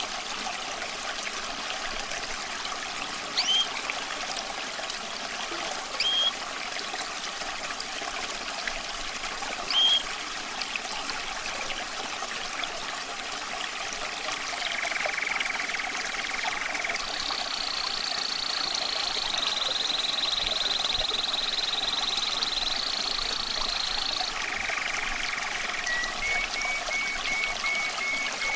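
Running water trickling steadily, with a songbird singing over it. A few short rising chirps come first, then long trilled phrases from about halfway through, and a string of quick repeated notes near the end.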